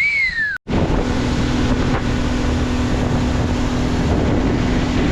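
A boat's outboard motor running steadily under way, a constant hum buried in heavy wind noise on the microphone. A brief falling whistle sounds at the very start.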